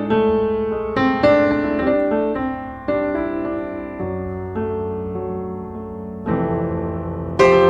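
Background piano music, chords struck about once a second.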